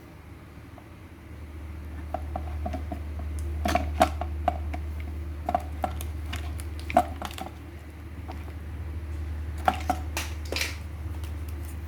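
Scattered hard clicks and taps from a plastic smart wall switch and its packaging being handled, with a few sharper knocks, over a steady low hum.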